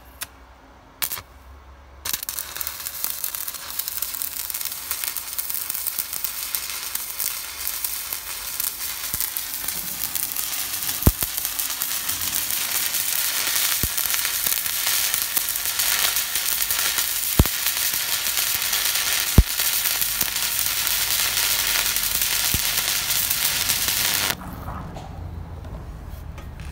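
Stick (MMA) welding arc from a mini inverter welder: a steady crackling sizzle that starts about two seconds in, with a few sharp pops in the middle, and cuts off suddenly near the end when the arc is broken.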